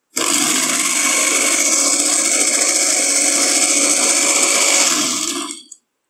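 Electric countertop blender switched on and running steadily, blending egg, oil and chopped garlic into mayonnaise. About five and a half seconds in it is switched off and winds down quickly.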